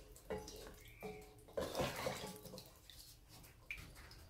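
Wooden spatula stirring chicken pieces in water in a pot: the liquid sloshes, with a few short knocks and scrapes of the spatula against the pot.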